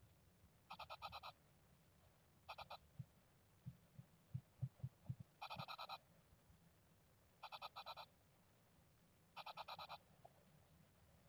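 Japanese tit nestlings in the nest box giving short, raspy buzzing calls, five bursts about two seconds apart, with soft ticking from the chicks shifting on the nest material in between.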